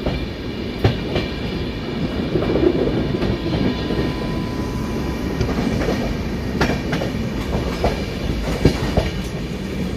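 Running noise of a moving passenger train heard from on board: a steady low rumble of the coach on the track, with irregular sharp clacks as the wheels cross rail joints and points.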